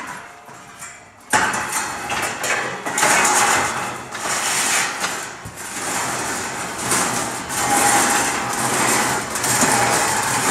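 A large steel band saw blade clanks as it is handled. About a second in, a workshop machine starts and runs steadily with a loud, noisy sound and a faint whine as the blade is fed through it to finish the newly made joint.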